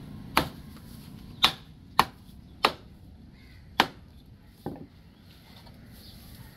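Heavy knife chopping into a large fish on a wooden cutting surface: six sharp chops at uneven spacing, the last one softer.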